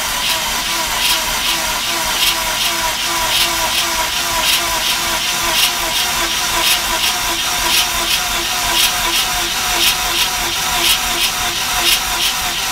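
Starter motor cranking a 2004 Mazda RX-8's Renesis two-rotor Wankel engine without it firing, with an even, rhythmic beat as each rotor face comes up on compression. The beat is steady, and the front rotor holds good compression on all three faces.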